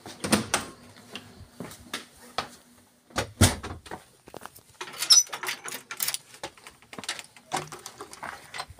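Footsteps and a door being opened and shut: a string of scuffs, clicks and knocks, the loudest about a third of a second in and about three and a half seconds in, with a short high squeak about five seconds in.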